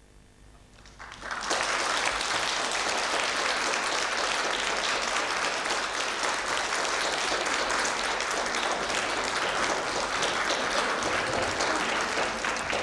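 Audience applause at the end of a choir piece: the faint last chord dies away, then clapping breaks out about a second in and holds steady.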